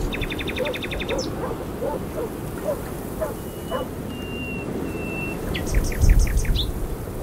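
Birdsong over a steady low rushing background. A fast trill of rapid high notes comes at the start, then a few thin, level whistled notes, and another trill near the end.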